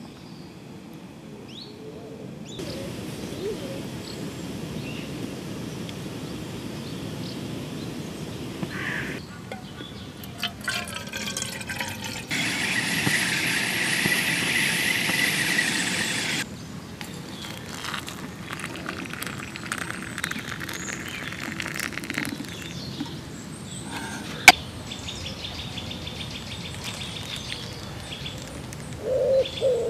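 Outdoor lakeside ambience cut together in several short segments: birds calling over a steady hiss, with one sharp click about two thirds of the way through. A pigeon starts cooing near the end.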